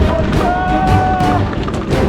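Music: a held note with overtones over a heavy low end and percussive strikes.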